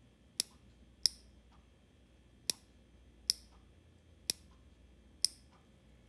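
Opened ME-8111 snap-action limit switch clicking six times at uneven intervals as its plunger is worked by hand.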